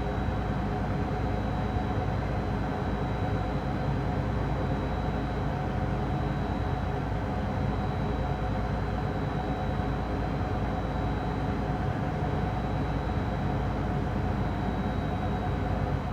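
Machinery room ambience: running machines make a steady, dense low rumble, with a constant hum and a thin high whine over it.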